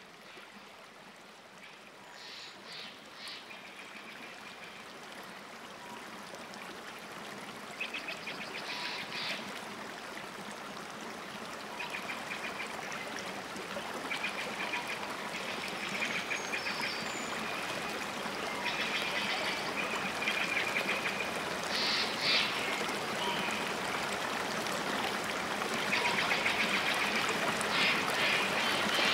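Running water with repeated short, chattering bird calls, the whole ambience growing gradually louder.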